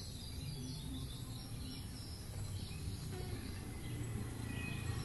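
Outdoor ambience: a low steady rumble with scattered faint bird chirps.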